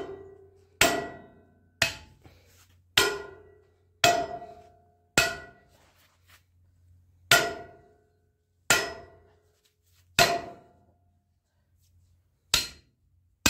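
Hand hammer striking steel about ten times, roughly one blow a second with a short pause midway, each blow a sharp clang with a brief metallic ring. The hammer is driving a steel bar against sheet steel to bend the sheet by hand.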